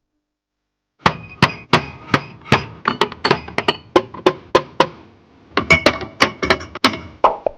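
Rapid run of sharp clacking knocks of hard objects against each other, about four a second, each with a brief ringing; the run fades out about five seconds in, and the knocks start again half a second later.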